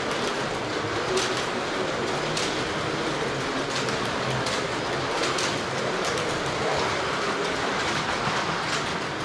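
1/32-scale Carrera Digital slot cars lapping a plastic track: a steady whirring and rattling of the small electric motors and the cars running over the track, with a faint whine that wavers as they pass and a few sharp clicks.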